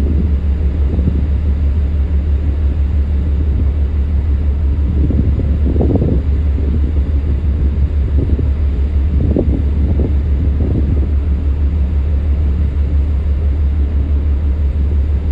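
Steady low rumble with wind gusting over the microphone, the gusts strongest about five to six seconds in and again around ten seconds.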